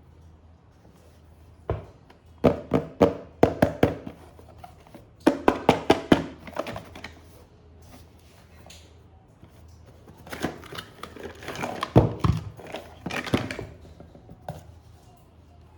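Toy packaging being handled and opened: bursts of quick clicks, knocks and crinkling, in three clusters with quieter gaps between.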